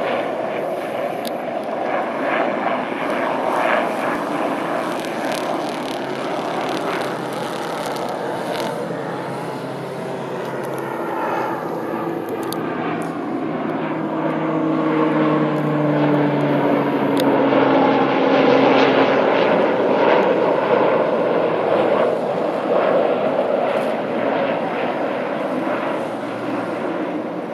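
Propeller-driven firefighting air tanker flying low overhead. Its steady engine drone swells and drops in pitch as it passes, loudest about two-thirds of the way through.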